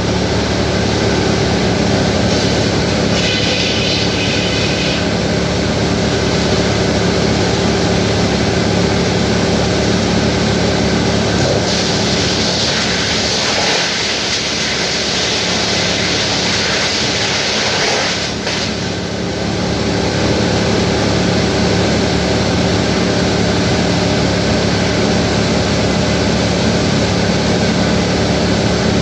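Sawmill machinery running loud and steady with a deep hum. About twelve seconds in, a harsh hiss rises over it for some six seconds, then falls away.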